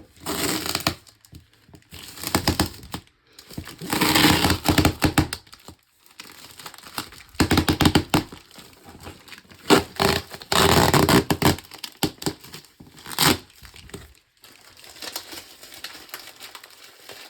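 Packaging being torn open and crumpled by hand, in about six loud bouts of rustling and ripping separated by short pauses.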